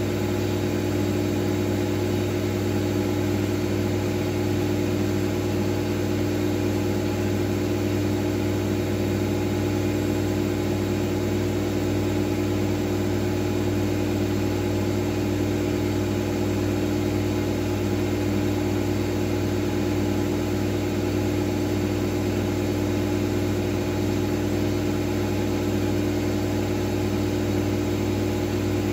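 Miele W433S front-loading washing machine spinning at a steady speed: an even, unchanging motor and drum hum.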